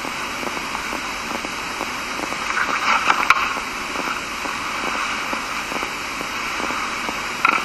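Steady background hiss of a lecture recording with faint crackles. A brief louder rustle with a sharp click comes about three seconds in, and another short burst near the end.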